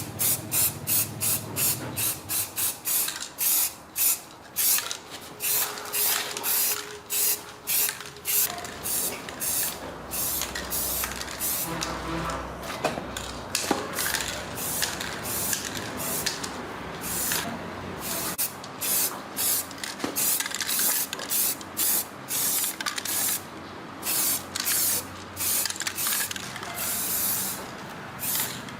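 A spray nozzle hissing in short repeated bursts, often one or two a second, as it is triggered on and off.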